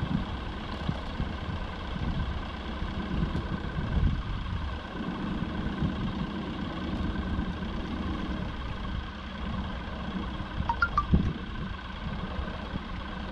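A boat's motor running steadily at low speed, a continuous hum with water and wind noise, and a light knock about eleven seconds in.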